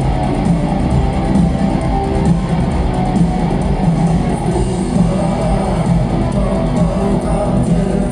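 Live rock band playing an instrumental passage: strummed electric guitars over bass, continuous and loud, recorded from the audience.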